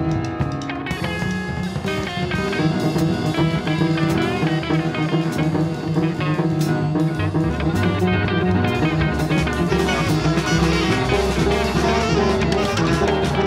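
Instrumental jazz ensemble music from a live recording: a busy drum kit under guitar and other pitched instruments in a dense, steady texture.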